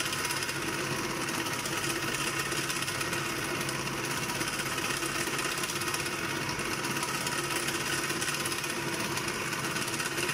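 Food processor motor running steadily at a constant speed, blending cream and condensed milk in its plastic bowl.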